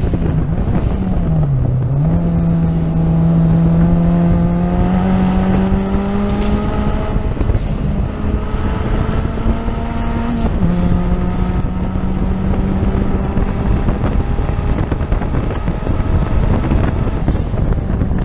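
Race car engine heard from inside the open, roll-caged cockpit, running hard at high revs at track speed. Its pitch dips briefly about a second in, climbs slowly over the next several seconds, then drops in a single step about ten seconds in. Wind and road rush run underneath.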